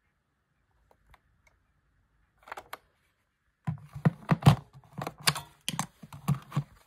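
Plastic handling noises from a Sanyo M GR62 portable cassette player: a few light clicks, then from about three and a half seconds in a quick run of clicks, knocks and scrapes as the player is moved on a wooden tabletop and its battery cover is slid off.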